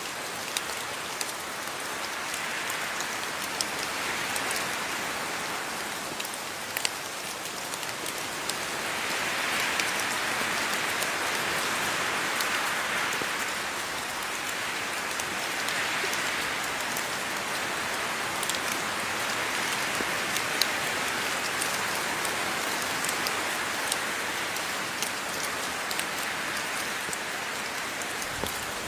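Steady rain falling: a dense hiss that swells and eases every few seconds, with scattered sharp ticks of single drops landing close by.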